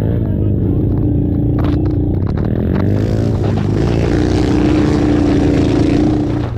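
Racing ATV engines running hard at high revs, one engine note growing louder and rising slightly in pitch about halfway through.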